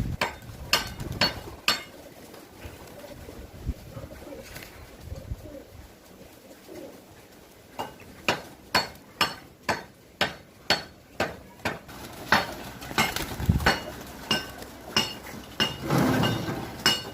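Pigeons cooing softly in a loft, with a run of sharp metallic clinks, about two a second, in the first couple of seconds and again through the second half.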